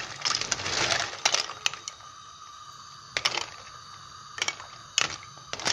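A metal spoon clinking against a stainless-steel pot and the snail shells inside it as the snails are stirred in water: a series of sharp, irregular clinks.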